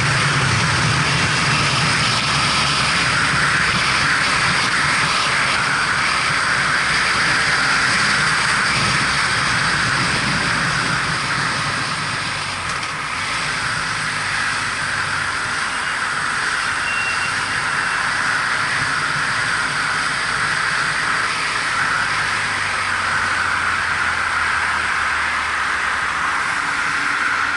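Motorcycle riding along: a BMW F700GS's parallel-twin engine running under way, under a steady rush of wind and road noise as picked up by a helmet-mounted camera. About twelve seconds in, the engine eases off and its note drops lower.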